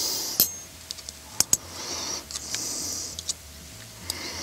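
Metal fork clicking against a small glass jar while picking anchovies out of it, a few sharp clinks with soft hiss between them.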